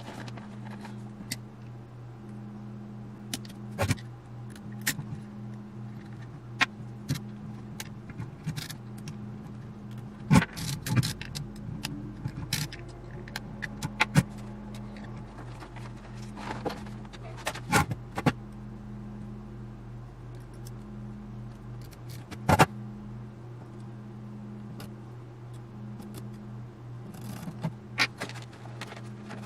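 Scattered metallic clicks, clinks and knocks of tools and metal parts being handled while an old radio control box is taken apart. A steady low hum runs underneath.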